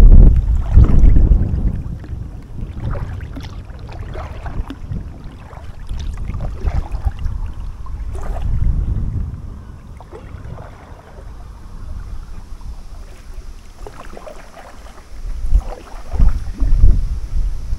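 Gusty wind buffeting the microphone, strongest near the start and again near the end. Between the gusts come the repeated splashes and drips of a kayak paddle dipping into the water, about one stroke every second or so.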